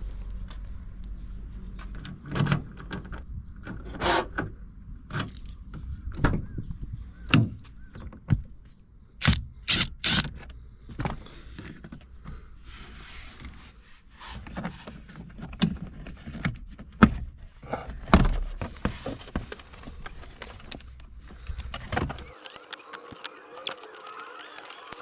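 Irregular knocks, clicks and thuds of small objects being handled, over a low hum. Near the end the hum stops and a steady sound with several even tones takes over.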